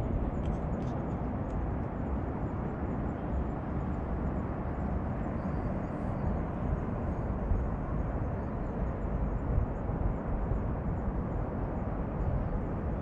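Steady low rumbling outdoor noise with an uneven, fluttering loudness, and faint high chirping over it.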